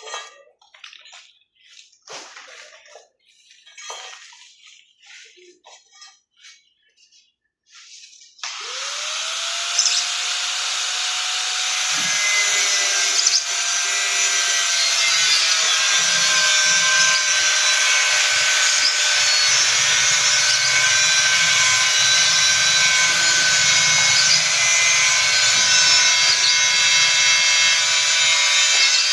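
Scattered small knocks and handling noises, then about eight seconds in an electric power tool's motor starts with a whine that rises as it spins up, and it runs steadily and loudly to the end.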